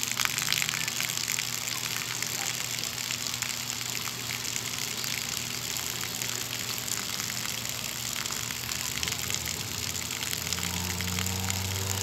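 Steady rush of splashing water, with a fine crackle of droplets throughout. Near the end a low hum with a few pitched tones comes in under it.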